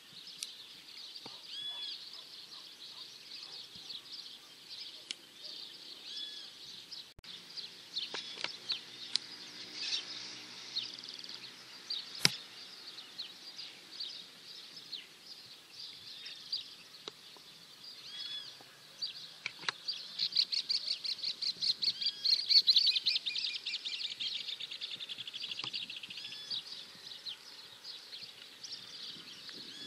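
Small birds chirping and calling in short high notes, with one bird breaking into a fast, rapid trill for several seconds about two-thirds of the way in. A single sharp click comes near the middle.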